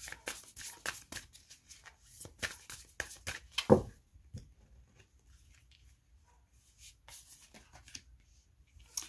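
A deck of oracle cards being shuffled by hand: a quick run of crisp card clicks for the first four seconds, with one louder knock just before they stop. After that come only a few soft card sounds, with a click near the end as a card is laid down.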